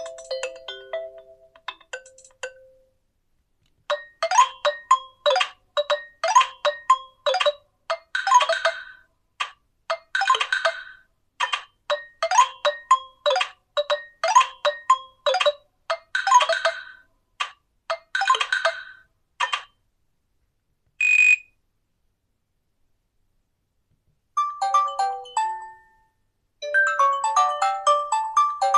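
Nokia 2780 Flip default ringtones and alert tones playing one after another with silent gaps between: the end of one tune, then a long ringtone of quick, evenly spaced melodic notes, a single short beep about two-thirds of the way through, and two more short melodic tones near the end.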